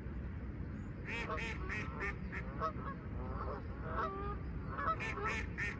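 Waterfowl calling: runs of short, repeated calls about a second in, again through the middle, and a quick series near the end, over a low steady rumble.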